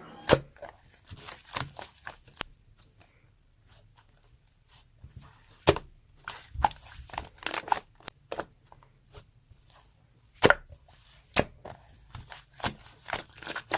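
Irregular light taps and clicks, a few dozen scattered unevenly with short quiet gaps; the sharpest come about half a minute...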